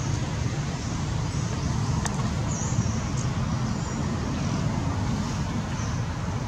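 Steady low rumble of background noise, with a faint click about two seconds in.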